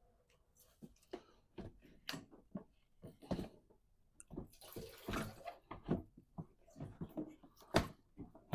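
Irregular clicks, clinks and knocks of hand tools and bolts as the 8 mm bolts holding a truck's secondary radiator are taken out, with a noisier spell of rattling about five seconds in.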